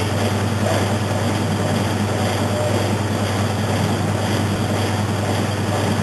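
2002 Maytag Atlantis top-load washing machine running with its basket turning: a steady motor hum under an even mechanical whir.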